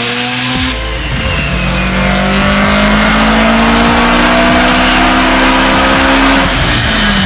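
Car engine accelerating hard, its pitch climbing steadily for several seconds, then falling near the end as it comes off the throttle.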